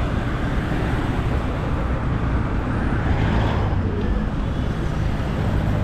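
Busy road traffic: cars and buses passing steadily, a dense low rumble of engines and tyres, swelling briefly about three seconds in as a vehicle goes by.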